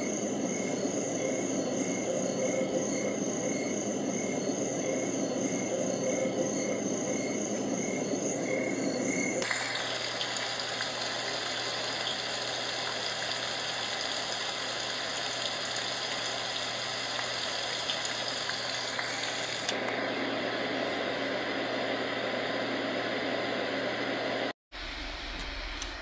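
HoMedics portable sound machine playing its recorded soothing sounds through its small speaker, changing track twice: first a steady noise with a regular pulsing chirp about twice a second, then a plain steady hiss, then a fuller, deeper noise. Near the end the sound cuts out for a moment.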